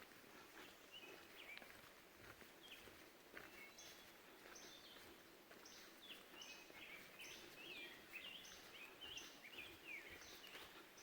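Faint birdsong: a songbird repeating short high notes about twice a second, starting a few seconds in, over a quiet hiss.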